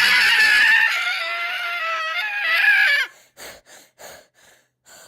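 A high-pitched voice wailing for about three seconds, then five short gasping breaths.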